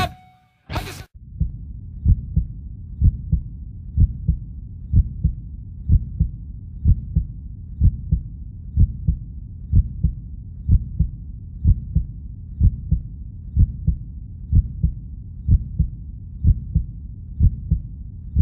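Heartbeat sound effect: steady low double thumps, about one beat a second, over a faint low hum.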